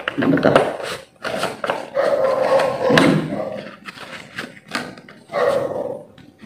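Cardboard box of a power bank being handled and slid open, with sharp clicks and a louder voice-like sound three times over it.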